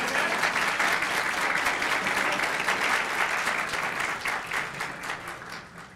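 Audience applauding, the dense clapping holding steady and then dying away over the last second or so.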